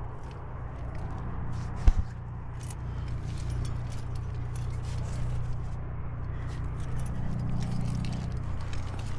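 Scraping and clicking of a climber's hands, shoes and gear against a granite crack while jamming upward, with a sharp double knock about two seconds in, over a steady low rumble.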